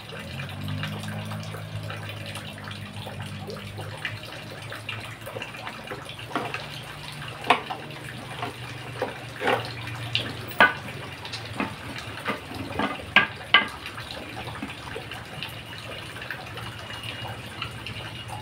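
Corded electric drill running steadily with a low hum, with scattered sharp clicks and ticks over it, the loudest a few seconds past the middle.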